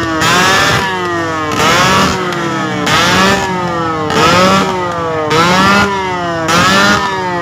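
Motorcycle engine revved over and over, about six blips at an even pace, each one rising quickly in pitch and then dropping away.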